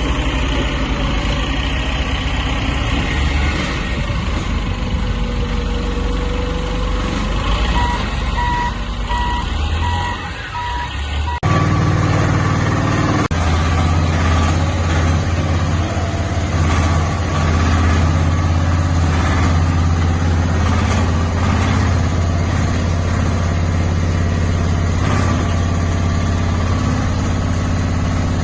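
Small diesel engine of an MR08 mini excavator running steadily. For the first ten seconds or so there is a different mechanical noise with a short series of evenly spaced electronic beeps. Then, a bit over a third of the way in, the sound changes abruptly to the steady engine hum.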